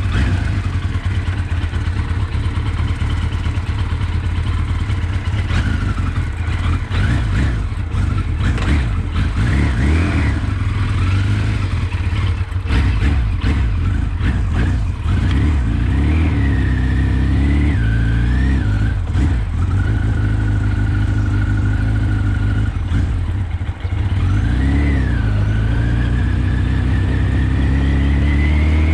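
1983 Kawasaki GPZ 1100's inline-four engine pulling the bike along on a ride, revving up and dropping back at each gear change. The pitch holds steady for a few seconds past the middle and climbs again near the end.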